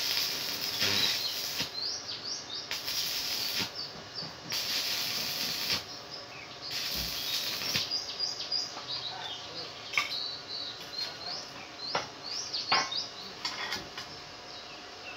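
Arc welding: the welding arc crackles and hisses in about four runs of roughly a second each as a steel pipe handle is welded onto a steel hoe blade, followed by a few sharp knocks later on.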